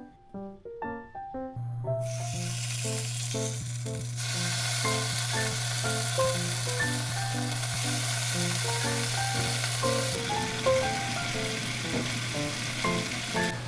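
Food sizzling as it fries in a pan, starting about two seconds in and going on steadily, over a steady low hum. A light melody of background music plays throughout.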